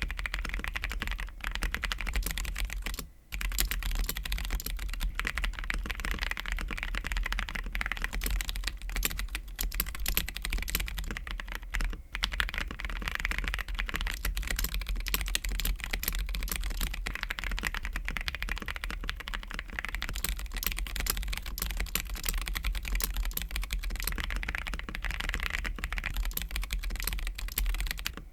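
Steady, fast typing on an Ikki68 Aurora R2 mechanical keyboard with Kiwi tactile switches and a polycarbonate plate, the keystrokes running densely together, with a short break about three seconds in.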